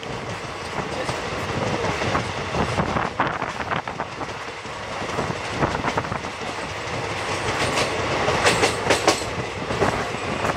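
Express train's passenger coach running at speed, heard from the open coach side: a steady rush of running and wind noise with wheels clicking over rail joints in groups, a cluster of sharp clicks near the end.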